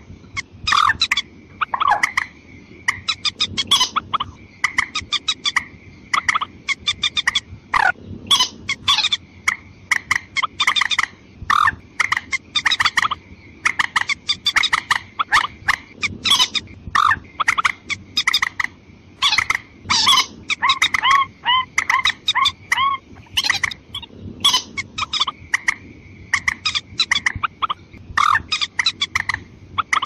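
Bursts of rapid clucking calls of a mandar, a moorhen-type rail, repeated every second or two, with a steady high whine underneath.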